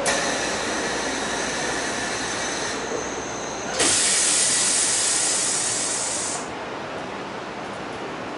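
Kyoto Municipal Subway 20 series train with Mitsubishi SiC inverter drive, running at speed and heard from inside the carriage: steady running noise, with a sudden loud hiss a little under four seconds in that lasts about two and a half seconds before fading back.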